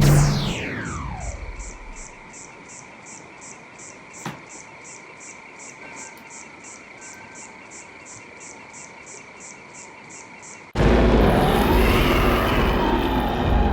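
A high sweep falling steeply in pitch over about a second and a half, then a quieter bed of high chirping pulses repeating about two or three times a second, with one brief click about four seconds in. About eleven seconds in, a loud, dense rush of noise cuts in suddenly.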